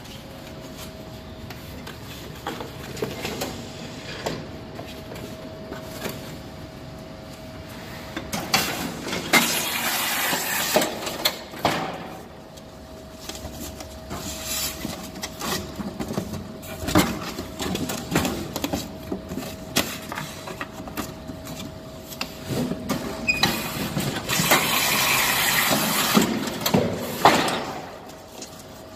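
Comarme GEM X350 automatic random-size case taper running with a steady hum and scattered clicks and knocks. Twice it turns louder and hissier for several seconds as a cardboard carton is driven through the taping head and sealed with packing tape.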